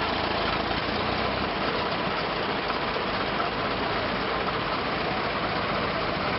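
Old vintage car engine idling steadily.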